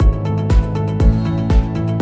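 Electronic background music with a steady kick-drum beat of about two beats a second under held synth notes.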